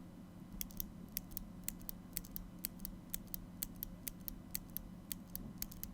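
Gateron Blue clicky mechanical keyboard switches being pressed repeatedly: a fast, slightly uneven run of sharp, high clicks, faint, starting about half a second in.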